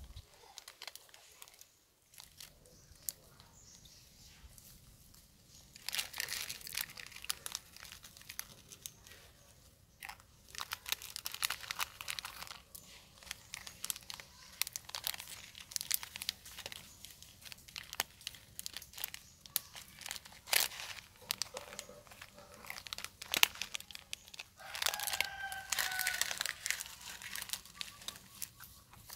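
A macaque crinkling a foil instant-noodle packet and crunching the dry noodles from it: a dense run of crackles and crunches starting about six seconds in. A brief pitched call sounds near the end.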